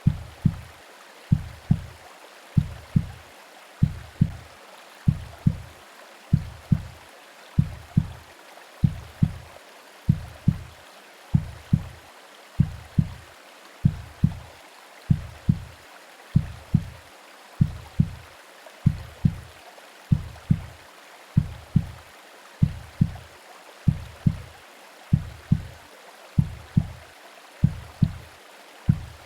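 Simulated womb sound: a slow heartbeat of paired low thumps, about 48 beats a minute, over a steady hiss of white noise and rain.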